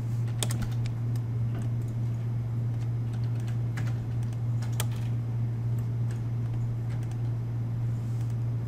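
A handful of scattered computer mouse and keyboard clicks over a steady low electrical hum.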